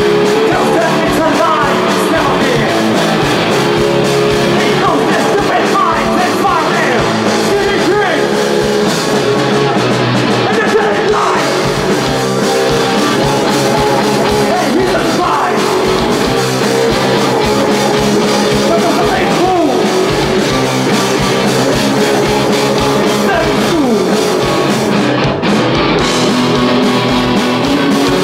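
Live rock band playing loud and steady, with electric guitar, bass guitar and drums.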